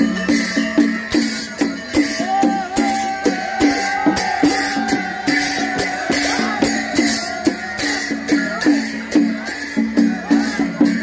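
Live processional percussion: a barrel drum beaten in a steady rhythm with cymbals clashing about twice a second, and crowd voices over it.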